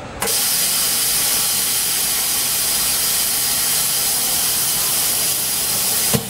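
OCA laminating machine running with a loud, steady hiss of air, which starts suddenly and holds even. A sharp click comes near the end, and the hiss then drops lower.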